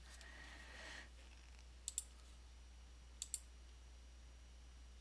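Two quick pairs of clicks from working a computer, a little over a second apart, against faint room tone.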